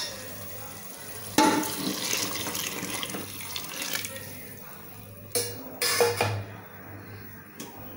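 Hot water pouring and splashing into a pot of chicken masala, starting suddenly about a second and a half in and tailing off after a couple of seconds. It is followed by a few sharp knocks against the pot.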